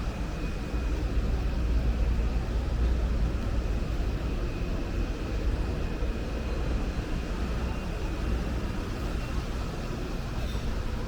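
Steady traffic rumble of a city street, with a faint steady high-pitched whine over it.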